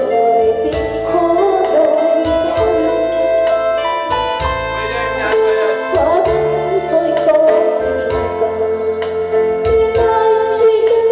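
A woman singing karaoke-style into a microphone, her amplified voice carrying a held, wavering melody over keyboard backing music with a steady beat.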